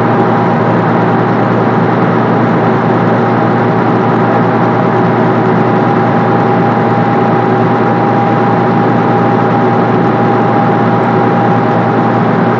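Passenger ferry's engine running steadily under way, a loud even drone with a fixed hum that does not change in pitch or level.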